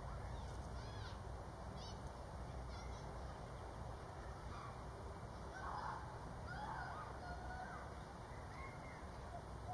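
Wild birds calling outdoors: small birds giving short, falling high chirps during the first few seconds, then a couple of louder, lower calls about six to seven seconds in, over a steady low background rumble.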